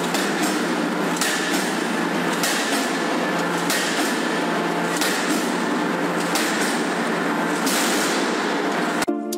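Forging press working a white-hot steel billet between its dies: a steady machine hum under a constant rushing noise, with a sharp strike about every second and a quarter. Music starts abruptly at the very end.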